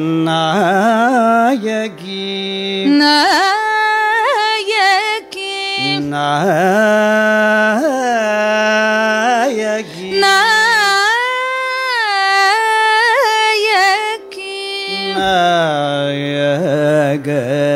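Carnatic devotional bhajan singing: a voice sings long, heavily ornamented phrases that waver and slide in pitch, over a steady drone.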